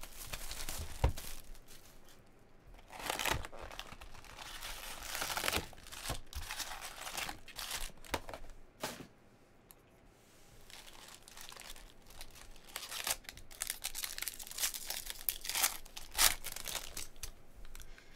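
Plastic shrink-wrap torn off a 2018 Bowman Jumbo baseball card box and foil card packs ripped open, crinkling and tearing in irregular bursts with sharp clicks, quieter for a moment near the middle.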